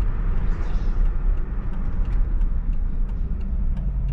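2003 Cadillac DeVille's 4.6-litre Northstar V8 running at low speed, a steady low rumble heard from the driver's seat with the windows down, mixed with road and wind noise.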